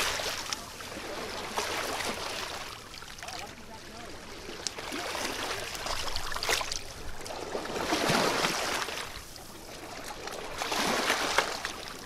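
River water washing in over rocks and pebbles at the shoreline, in uneven swells that rise and fall back every few seconds.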